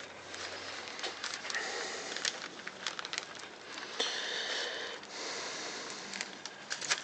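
Irregular metal clicks and scraping from a windscreen wiper arm puller working on the Makita saw's motor rotor to draw off its ball bearing, with a longer stretch of scraping about four to six seconds in.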